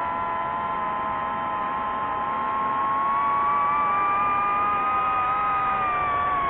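DJI FPV drone's motors and propellers whining, several close tones held together. They rise in pitch and get louder a few seconds in as the throttle goes up, then ease back down near the end.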